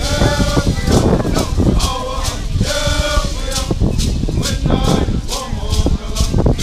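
Group of singers performing a traditional California Indian song, accompanied by rattles shaken in a steady beat of about two to three shakes a second.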